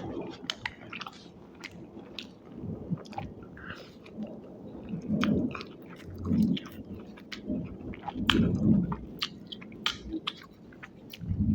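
Close-miked eating of spicy Indian street food: chewing and biting, with many wet mouth clicks and a few heavier chewing sounds.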